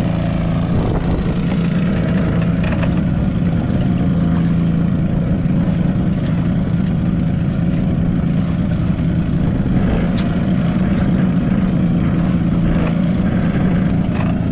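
A small fishing boat's petrol engine running at a steady speed, an even low hum that does not rise or fall.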